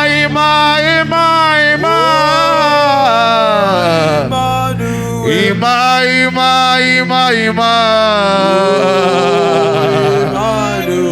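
A man singing long, wavering held notes over steady sustained backing music, in a slow worship chant.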